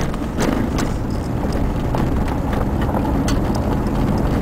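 Rumble of an SUV driving slowly on a rough gravel track, heard from inside the cabin, with scattered sharp clicks and knocks as the car jolts over stones.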